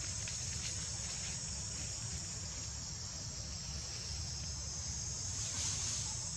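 Steady high-pitched chorus of insects, with a constant low rumble underneath.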